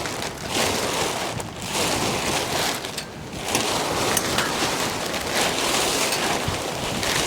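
Strong gusty wind buffeting the microphone, a loud rushing that swells and eases, dipping briefly about three seconds in.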